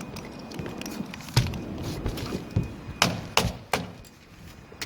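Sharp knocks and thuds on a wooden shed roof deck: one a little over a second in, then three close together around three seconds in, with lighter taps between.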